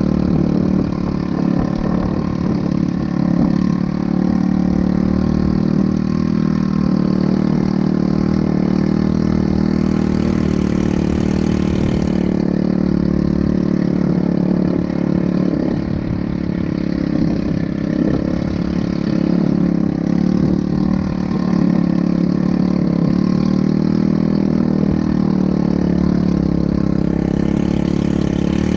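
ATV engine running steadily, its pitch wavering only a little.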